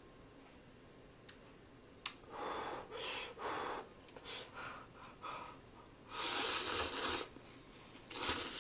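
Two light clicks, then a series of breathy puffs blowing on a raised mouthful of instant ramen noodles to cool them, followed about six seconds in by a loud slurp of the noodles and a shorter slurp near the end.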